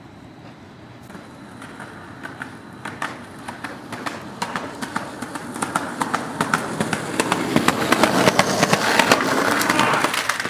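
Skateboard wheels rolling on rough pavement, growing steadily louder for about eight seconds with a rapid run of clicks and clacks as the wheels cross cracks and joints, then easing off near the end.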